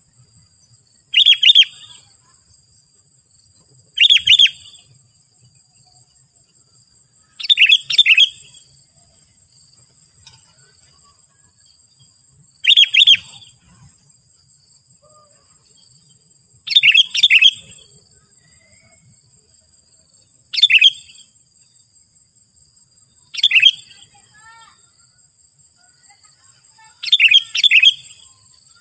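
Sooty-headed bulbul (kutilang) giving short, loud call phrases of about half a second to a second, repeated every three to four seconds; some phrases come as a quick double.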